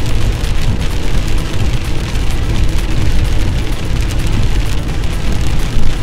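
Heavy rain hitting the windshield and body of a moving car, heard from inside the cabin as a steady hiss of many small ticks over a loud low rumble of road and wind noise.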